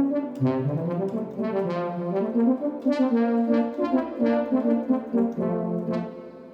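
Yamaha DX7 FM synthesizer playing a phrase of notes and chords, with frequent new attacks. The last notes die away near the end.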